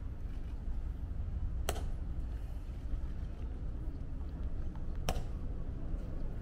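A hushed outdoor crowd over a steady low rumble, broken twice by a single sharp click, about three and a half seconds apart.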